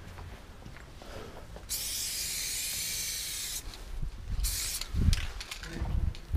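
Aerosol spray-paint can hissing in one steady burst of about two seconds, then a shorter burst, followed by a few dull thumps.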